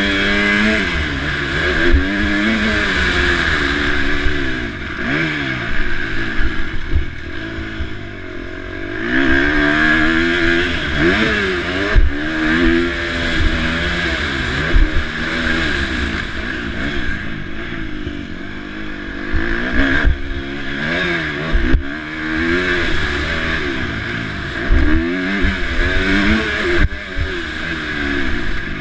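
KTM 350 SX-F single-cylinder four-stroke motocross engine revving up and dropping back again and again as the bike accelerates and shifts under racing load. A steady hiss runs underneath, with occasional sharp knocks.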